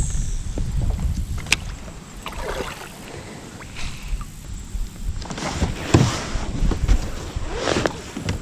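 Kayak paddle strokes in river water: about three splashy strokes a couple of seconds apart, over a low rumble of wind on the microphone.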